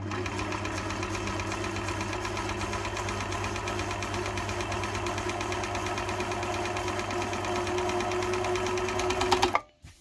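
Motor-driven sewing machine with a walking foot running at a steady speed under an electronic foot pedal: a fast, even patter of needle strokes over a motor hum. It stops abruptly near the end.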